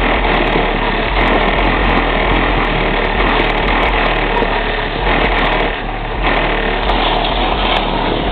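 Wind and road noise rushing over a camera mounted on the outside of a moving car, loud and steady with a continuous low rumble underneath; it eases briefly about six seconds in.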